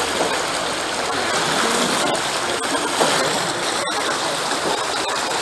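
Shallow rocky river rushing steadily, the water flowing over stones and around the legs of a table standing in the current.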